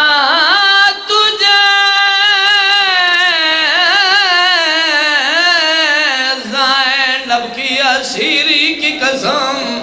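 A man's voice chanting a long, drawn-out lament into a microphone: one held, heavily wavering line that slowly falls in pitch, breaking into shorter cries after about six seconds.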